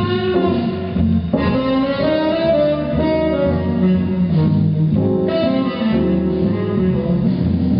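Swing jazz music with a guitar prominent, playing at a steady level.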